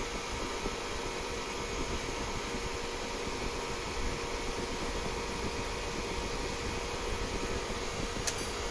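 A steady whir of a running fan, even throughout, with a faint hum under it. One sharp click near the end.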